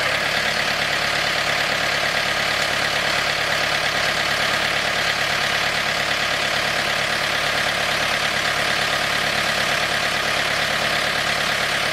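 Backhoe's diesel engine idling steadily.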